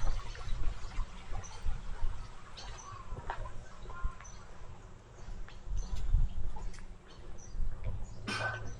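Small birds chirping and calling here and there over a low outdoor background, with one louder brief sound near the end.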